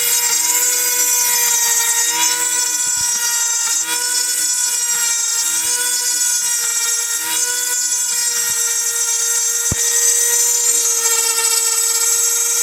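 Small CNC milling machine cutting PA6 aluminium alloy: a steady high spindle whine, with a lower motor tone that starts and stops roughly once a second as the cut goes on. One sharp click about ten seconds in.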